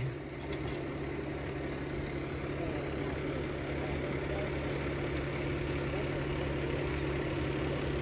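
Conveyor concrete truck's diesel engine running steadily, with a low even hum, while the truck's telescopic belt conveyor extends.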